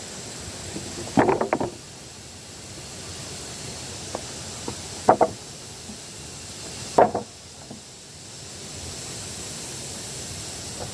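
Sharp knocks or impacts: a quick cluster of several about a second in, then single knocks about five and seven seconds in, over a steady rushing background noise.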